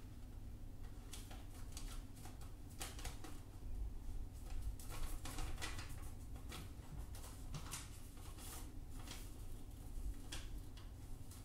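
Sheet of origami paper being handled, folded and creased by hand: irregular crisp rustles and crinkles, busiest in the middle, over a low steady hum.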